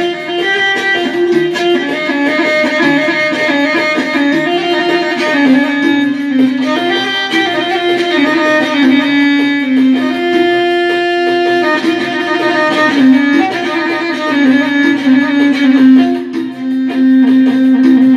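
Korg keyboard playing an Arabic instrumental melody with fast ornamented runs between held notes, settling on one long held note near the end.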